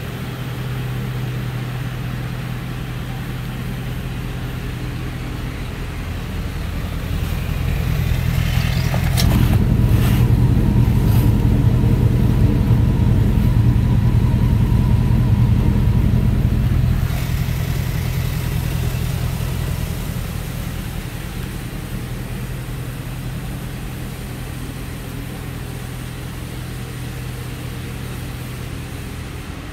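A 2004 Dodge Ram 1500's 5.7-litre Hemi V8 idles steadily out of the exhaust tip. The idle grows louder for several seconds in the middle, with a few sharp clicks about ten seconds in.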